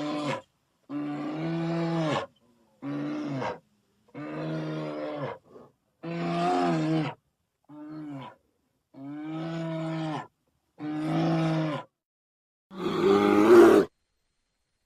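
A string of about eight short bear calls, each a second or so long with a steady pitch, separated by brief silences; the last, near the end, is louder and rougher.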